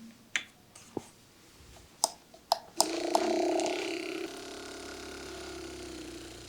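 A few sharp clicks, then a steady mechanical hum that starts abruptly about three seconds in, loudest for its first second or so, then continuing at a lower level.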